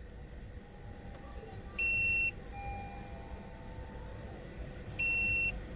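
Electronic beeper sounding two short, high-pitched beeps about three seconds apart, part of a steady repeating warning pattern.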